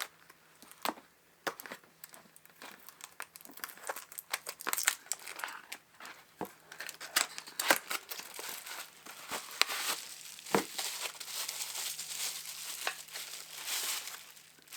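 Packaging crinkling and tearing as a wrapped wooden key hook organizer is unwrapped by hand, with scattered sharp clicks and handling taps. The crinkling grows busier in the second half.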